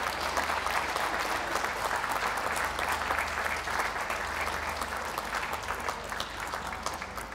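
Ringside audience applauding steadily, a dense patter of many hands clapping that eases off near the end.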